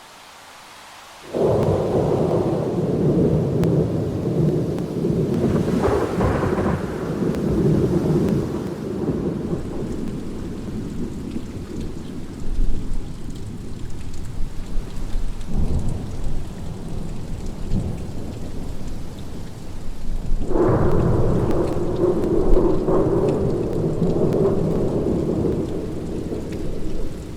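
Thunder rolling over steady rain. A loud low rumble breaks in about a second in and keeps rolling, with fresh peals about six seconds in, around fifteen seconds, and a strong one about twenty seconds in.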